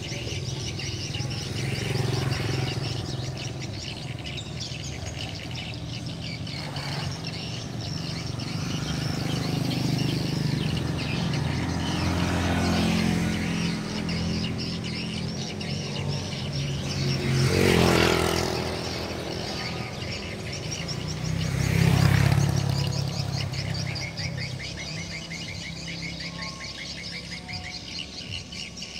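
Edible-nest swiftlet calls, a dense, unbroken chatter of rapid chirps and trills, from a swiftlet house's call-playback speakers being tested, mixed with the swiftlets circling the house. Passing vehicles swell and fade several times, loudest about two-thirds of the way through.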